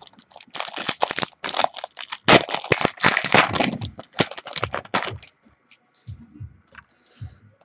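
A trading card pack's wrapper being torn open and crinkled, a dense crackling that runs for about five seconds. A few soft thumps follow as the cards are handled.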